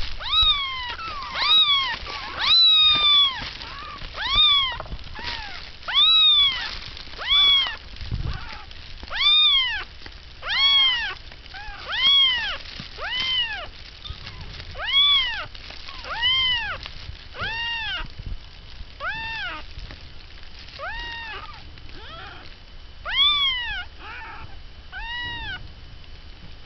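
Newborn kittens mewing over and over, about one high-pitched cry a second, each cry rising and then falling in pitch. The cries grow fainter and further apart toward the end.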